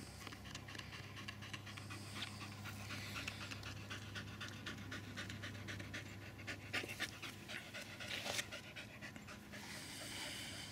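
Staffordshire bull terrier panting hard in quick, even breaths, cooling down after agility exercise in the heat.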